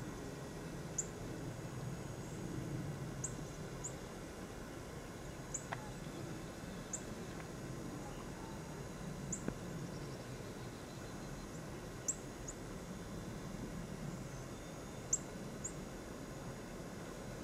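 Small birds giving short, high-pitched chirps at irregular intervals, a dozen or so, over a steady low rumble.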